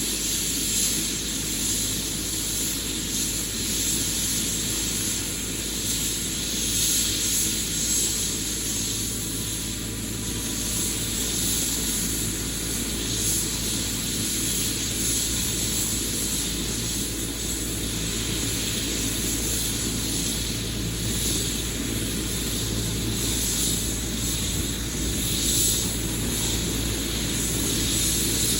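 Eurocopter EC145 helicopter running steadily: a high turbine whine from its twin turboshaft engines over low rotor noise.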